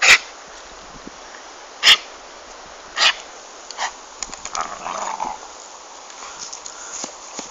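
Dog barking: three loud, short, sharp barks about a second apart, followed by quieter dog noises around the middle.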